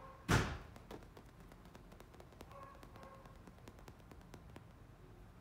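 A short, loud thump about a third of a second in, then scattered small clicks and taps, typical of a chihuahua puppy's paws and claws on a leather sofa as it shifts about.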